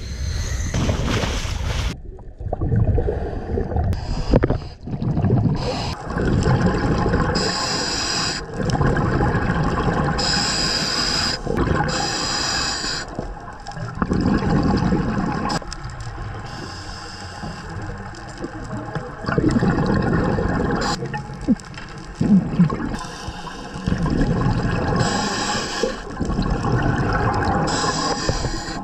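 Scuba diving underwater on open-circuit gear: a regulator's inhale hisses come in short spells between longer stretches of bubbly rumbling from exhaled air rising past the camera.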